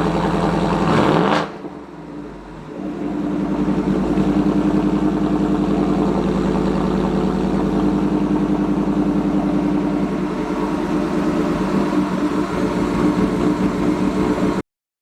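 2024 Ford F-150's 5.0L Coyote V8 running through a Corsa Xtreme cat-back exhaust: a quick rev about a second in, then a steady idle. The sound stops abruptly near the end.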